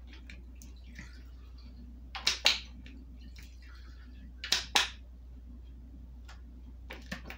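Sharp clicks and clinks in two close pairs, about two seconds apart, from metal measuring spoons and a plastic lime-juice squeeze bottle as lime juice is squeezed into a tablespoon and tipped into zip-top bags of shrimp.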